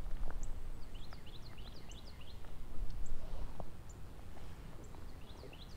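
Small birds chirping in many quick, high, downward-sliding notes, over a low, uneven rumble.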